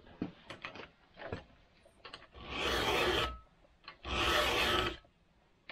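A round chainsaw file pushed twice across a steel saw-chain cutter tooth to sharpen it: two filing strokes of about a second each, roughly a second apart, with a few light clicks before the first.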